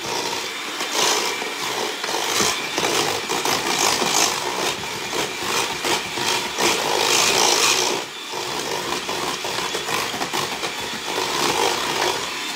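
Electric hand mixer running loud, its beaters whirring through thick pumpkin batter in a stainless steel bowl, with a brief dip about eight seconds in.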